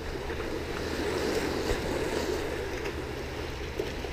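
Steady wind on the microphone over sea water washing among rocks.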